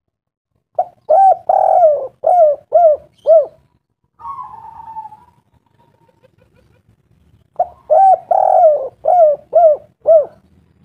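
A bird calling: a quick run of about six arching notes, given twice about seven seconds apart, with a short falling rasp between the two runs.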